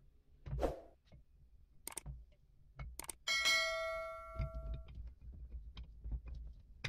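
Small clicks and light knocks of steel jack parts being handled and fitted together, then about three seconds in a click followed by a ringing bell chime that fades away over a second and a half: a subscribe-button sound effect.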